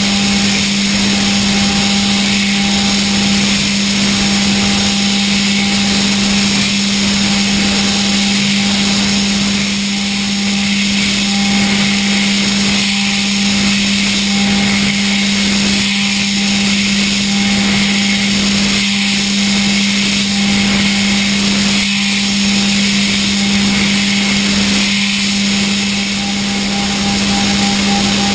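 Okuma GENOS M560V vertical machining center finish hard-milling D2 tool steel hardened to 62 HRC. A steady low hum runs under a constant hiss, and a higher tone repeatedly breaks off and comes back every second or so.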